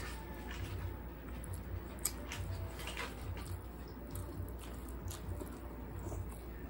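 Close-up eating sounds of a person chewing rice and rotisserie chicken eaten by hand: soft wet mouth clicks and smacks, scattered and irregular. A low steady hum runs underneath.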